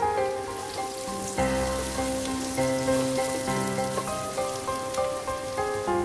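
Sliced onions sizzling as they fry in hot oil, a steady fine crackle, under background instrumental music playing a slow melody of held notes.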